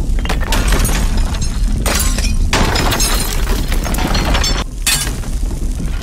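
Explosion sound effects mixed with crashing and shattering debris, starting abruptly and going on without a break, with sharp crashes about two, two and a half and five seconds in.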